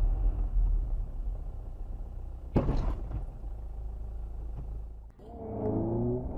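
Dashcam recording of low, steady car rumble from road and engine noise, with one sharp thud about two and a half seconds in. Near the end the sound cuts to a different recording: a pitched hum that rises in short repeated steps.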